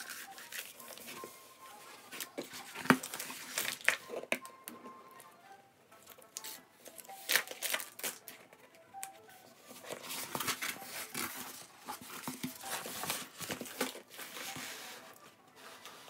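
Paper protective sheet on a diamond painting canvas crinkling and rustling as hands unroll, handle and smooth it, in irregular bursts of sharp crackles.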